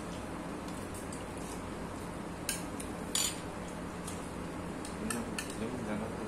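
Spoon clinking and scraping against a ceramic bowl during eating: a few sharp clinks, the loudest about two and a half and three seconds in, over a steady low hum.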